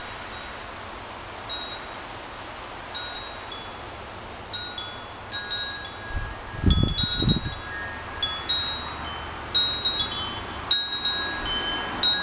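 Wind chime ringing in strong wind: a few scattered notes at first, growing to frequent, overlapping strikes from about halfway. Around the middle, a wind gust buffets the microphone with a low rumble.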